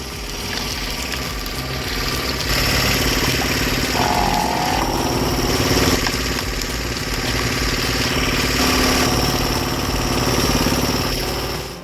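Engine of a hydraulic log splitter running steadily, with a brief higher tone about four seconds in.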